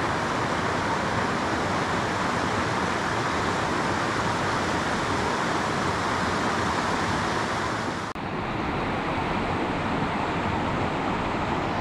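Rushing water of the Tanew river's small rapids, a steady even rush as the river spills over low rocky steps. About eight seconds in it dips briefly and then continues a little duller.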